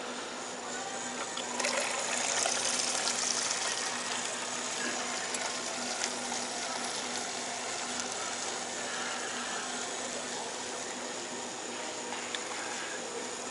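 Fountain drink dispenser pouring soda into a cup. The gushing starts about a second and a half in, is strongest just after, then runs on as a steadier pour.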